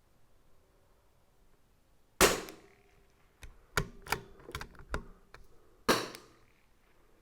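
Two shots from a CZ 457 AT-ONE .22 LR bolt-action rifle, about three and a half seconds apart. Between them come several quick metallic clicks as the bolt is worked to eject the spent case and chamber the next round.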